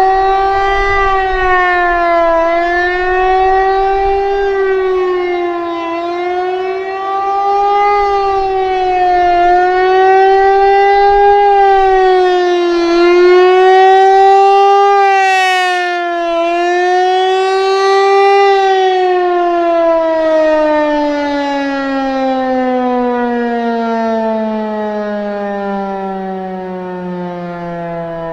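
Federal Signal Equinox outdoor warning siren sounding a fast wail, its pitch rising and falling about every three to four seconds. About two-thirds of the way through it stops cycling and slides steadily down in pitch, getting quieter as it winds down at the end of the test. It runs on batteries that are not doing so hot but still has punch.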